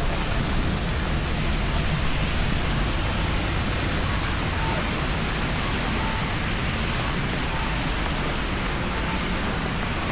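Steady heavy rain, an even hiss. Faint short high beeps repeat about every second and a half from about halfway in.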